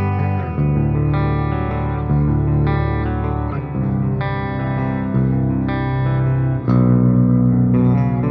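Ibanez Axion Label RGD71ALMS seven-string electric guitar with Fluence Modern ceramic pickups, played through an amp simulator: a run of chords, a new chord struck about every second and left to ring.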